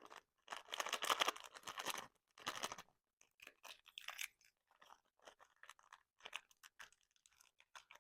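Paper crinkling and tearing as a paper blind bag is handled and opened: a longer rustle about half a second in, a shorter one, then a run of short crackles.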